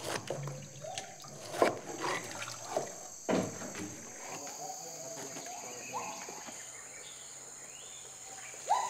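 Tropical forest ambience: a steady high insect drone with a few short rising calls and occasional sharp knocks.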